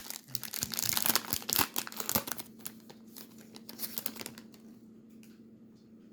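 Wrapper of a Topps trading-card pack being torn open and crinkled: dense crackling in the first two seconds that thins out by about four seconds in, followed by a few faint clicks.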